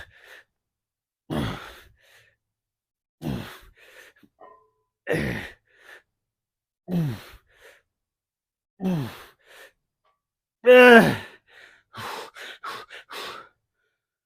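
A man grunting out a falling, sigh-like exhale with each repetition of a heavy leg exercise, roughly every two seconds. About eleven seconds in comes a louder, higher strained groan, followed by a few quick panting breaths.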